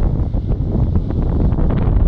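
Wind buffeting the microphone: a steady, loud low rumble with no pauses.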